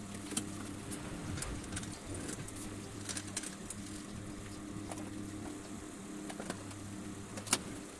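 Light clicks and taps of plastic and metal parts being handled as a children's tricycle's canopy and headrest are fitted and bolted on, with one sharper click near the end, over a steady low hum.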